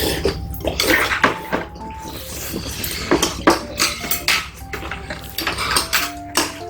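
Eating utensils clinking and scraping against dishes during a meal: a run of irregular sharp clinks and clicks, several with a short ring.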